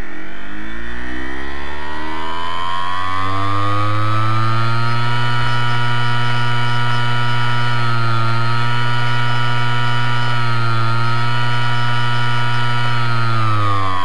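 Western Digital hard disk drive's spindle motor spinning its platter: a whine that rises in pitch as it spins up over the first few seconds, holds steady with two brief wavers, then falls as it winds down near the end.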